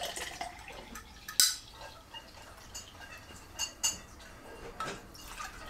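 Sweet almond-milk drink pouring from a can into a glass, with a few sharp clicks and taps of can and glass; the sharpest click comes about a second and a half in.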